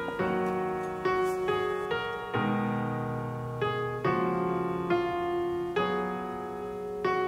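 Background music: an unhurried solo piano piece, with notes and chords struck about once a second and each left to ring and fade.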